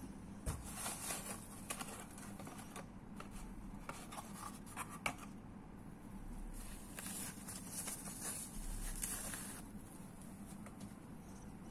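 Cardboard packaging and a foam wrap being handled while a switch is unboxed. Soft rustling and a few light taps and clicks come in two busier stretches, one shortly after the start and one in the second half.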